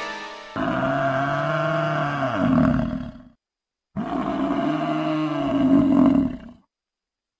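A deep animal roar sounds twice, each about two and a half seconds long, with the pitch sinking at the end. Each roar cuts off abruptly into dead silence, as an edited-in sound effect would.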